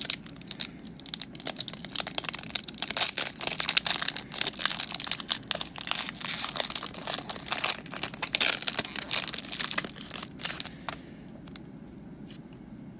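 Foil wrapper of a Pokémon TCG Vivid Voltage booster pack being torn open and crinkled in the hands, a dense run of rapid crackles that stops about eleven seconds in, followed by a few soft clicks.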